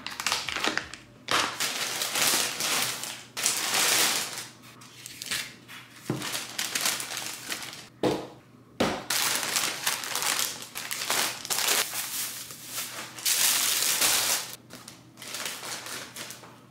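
Plastic grocery bag rustling and crinkling in repeated bursts as groceries are pulled out of it, with a few knocks of bottles and cartons being set down on a countertop.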